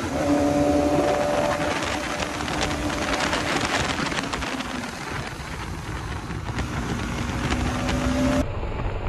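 Motorcycle cruising at steady speed on the highway: a steady engine hum under heavy wind and road noise on the rider's mic. The hum fades for a few seconds mid-way and returns, then cuts off abruptly shortly before the end.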